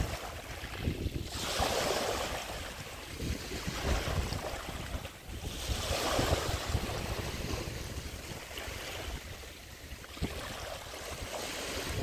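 Small Baltic Sea waves breaking and washing up a sandy, pebbly shore, with two clear surges about four seconds apart. Wind buffets the microphone as a low rumble underneath.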